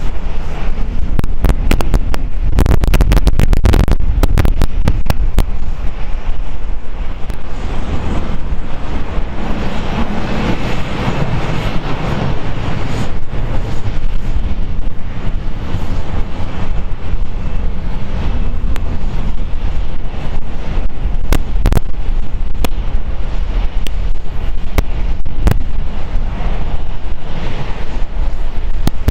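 Wind buffeting the microphone: a steady heavy low rumble with clusters of sharp crackles and pops, thickest about one to five seconds in and returning now and then afterwards.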